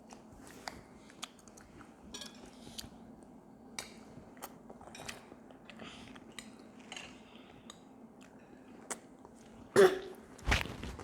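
Eating sounds at a meal of rice and tofu: chewing and scattered small clicks of cutlery against dishes over a faint steady hum, with two louder sudden sounds near the end, less than a second apart.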